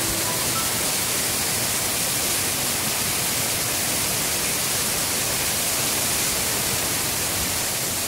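Waterfall pouring down a rock cliff onto boulders: a loud, steady rush of falling and splashing water.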